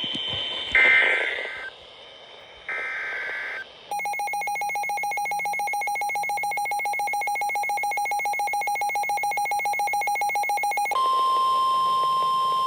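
Emergency Alert System (EAS) alert on NOAA Weather Radio: two short buzzy bursts of SAME header data, the end of the digital header that opens a warning. Next comes a rapidly pulsing alarm tone for about seven seconds, slowly growing louder, which switches about eleven seconds in to the steady 1050 Hz warning alarm tone that signals a warning is about to be read.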